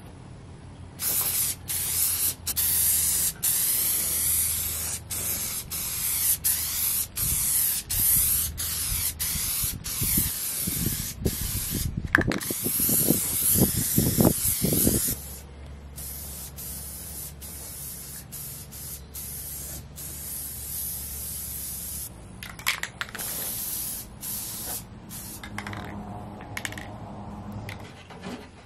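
Aerosol spray-paint can spraying in a run of bursts, each cut short when the nozzle is let go. The bursts are long and loud for the first half, then quieter and shorter later on.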